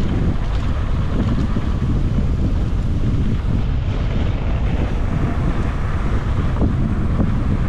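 Wind buffeting an action camera's microphone during a mountain bike ride: a steady, loud low rumble with no letup.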